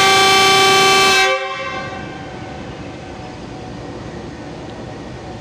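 GE U20C diesel locomotive's horn sounding one steady blast of about a second and a half, cutting off sharply, then the locomotive's diesel engine running steadily as it stands ready to depart.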